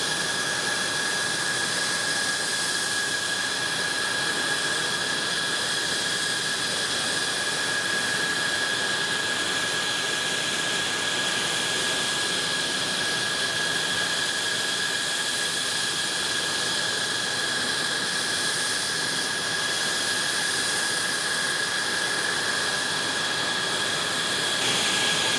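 F-16 fighter's turbofan engine idling on the ground: a steady high whine over an even rushing hiss, unchanged throughout.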